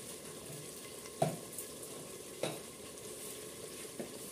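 Ground spice paste sizzling and frying in oil in an open pressure cooker, a steady hiss. A few short sharp taps break in, about one every second or so.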